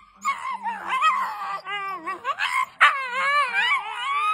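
Two Shiba Inus vocalizing at each other with high-pitched, wavering whines and yowls that keep rising and falling in pitch, sometimes overlapping.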